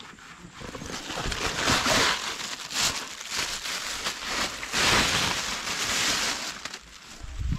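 Crinkling of a plastic bag and rustling of a mesh keep net as a caught fish is handled. The rustling comes in two long swells, with a low thump near the end.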